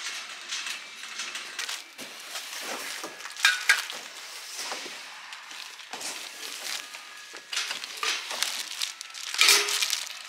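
Plastic-wrapped metal table legs rustling and crinkling as they are handled, with irregular knocks and clinks as they are set down on a wire-mesh shopping trolley; the loudest knocks come about three and a half seconds in and near the end.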